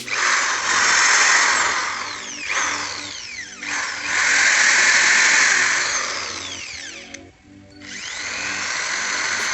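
A MAILTank SH09 13 mm electric impact drill running in three long bursts, each swelling up and easing off, with a short break about seven seconds in. Background music plays under it.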